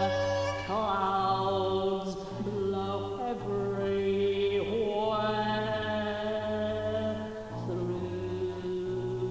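Wordless vocal chanting: long held notes that shift pitch every second or two, with short glides between them, over a low droning tone that pulses on and off.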